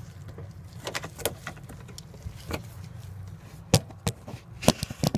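Gloved hands and the phone knocking and brushing against the washer's plastic drain filter housing and access opening: scattered light clicks and knocks, with a few sharper clicks in the last second and a half, over a steady low hum.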